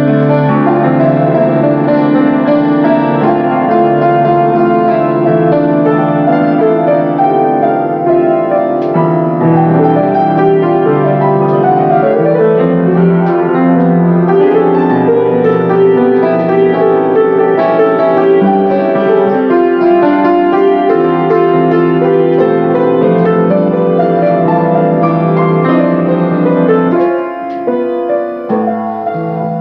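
Grand piano played with sustained, overlapping chords and melody; the playing thins and softens briefly near the end.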